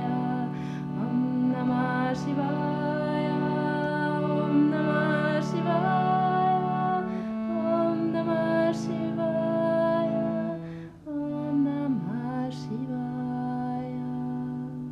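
A woman chanting a mantra in slow, long-held notes over a sustained drone, the pitch moving to a new note every few seconds, with a short break about eleven seconds in.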